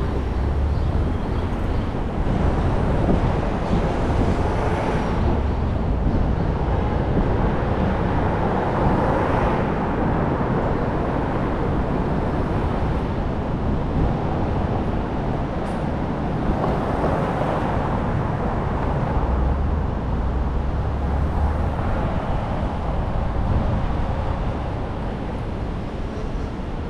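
A car driving on city streets: steady road and tyre noise over a low engine rumble, swelling louder several times.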